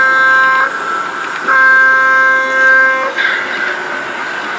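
Model train's sound-decoder chord horn: one multi-note blast cuts off about half a second in, and a second long blast follows from about 1.5 to 3 seconds.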